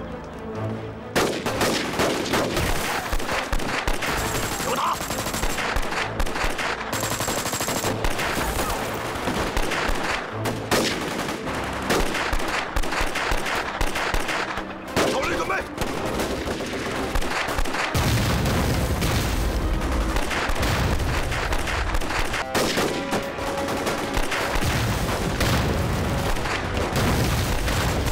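Sustained battle gunfire: rapid rifle and machine-gun shots, many overlapping, starting about a second in and running without pause. A deep low rumble joins in underneath past the middle.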